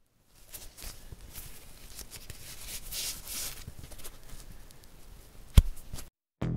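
Crackling, rustling noise laid under a title card. It swells to a peak in the middle and fades, with one sharp thud near the end.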